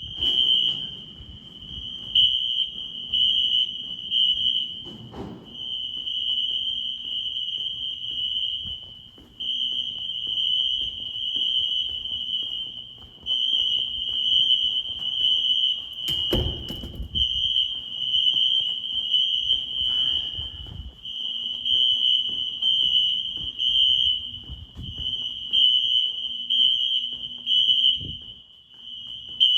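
Wheelock NS fire alarm horns sounding in alarm: a steady, loud, high-pitched tone with a short break about every four seconds. A loud thump about halfway through.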